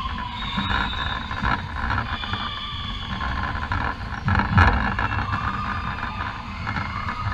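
Indoor volleyball rally on a hardwood court in a reverberant sports hall: ball contacts and shoe squeaks over a steady background din, with the loudest hit about four and a half seconds in.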